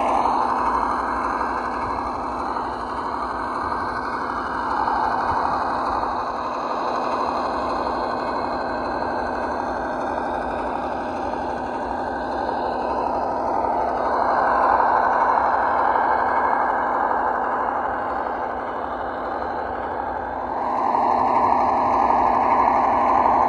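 Sound module of a 1:12 scale RC ZIL-131 truck playing a simulated V8 engine through a small speaker, with no deep bass. The engine note runs steadily and swells louder three times, as when the throttle is opened.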